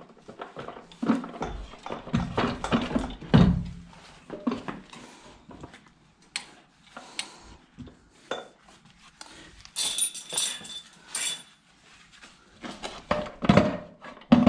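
Irregular metal clanks, knocks and scrapes as a BMW N52 engine hanging from hoist chains is wiggled against the transmission to line up the bell housing, with bright ringing clinks of chain and metal near the middle. Grunts of effort come between the knocks.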